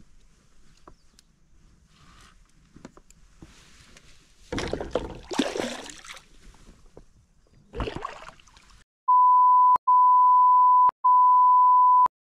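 A steady, loud, mid-pitched censor bleep, three long beeps with two short breaks, in the last three seconds, with all other sound cut out beneath it. Before it, two bursts of noise, one about halfway through and a shorter one a little later.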